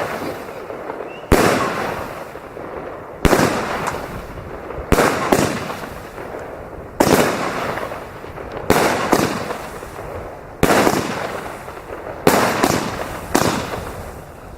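Fireworks going off: about ten sharp bangs a second or two apart, each trailing off in crackle and echo.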